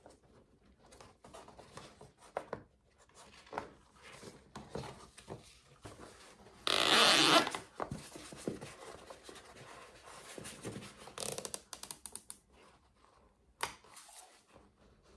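Plastic zip ties being pulled tight through their ratchet heads, a zipping rattle, the loudest pull just under a second long about seven seconds in, amid small clicks and rustles of handling.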